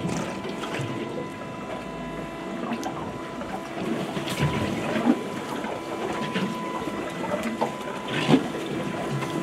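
Steady hum of a boat with water against the hull, and scattered clicks and knocks from fishing gear being handled. The sharpest knock comes about eight seconds in.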